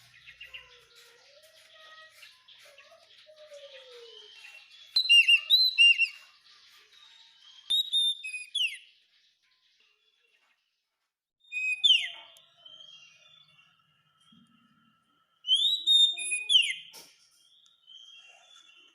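Oriental magpie-robin (kacer) singing: faint twittering at first, then four loud bursts of clear whistled phrases with sharp down-slurred notes, separated by pauses of a second or more.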